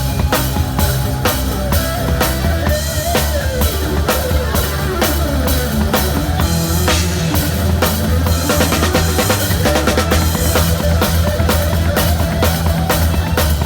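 Drum kit playing a steady beat in live band music, with kick and snare hits over a sustained bass line and a sliding melody above.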